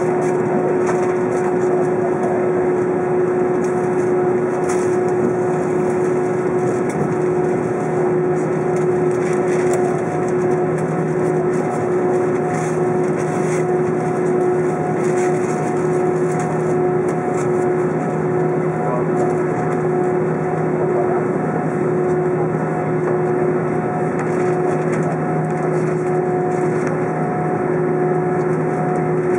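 Jet engines running at idle: a steady hum with a constant whine, and a lower tone that joins about seven seconds in.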